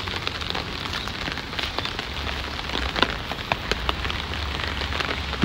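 Steady rain falling, with scattered sharp ticks of single drops. A low rumble joins about two seconds in.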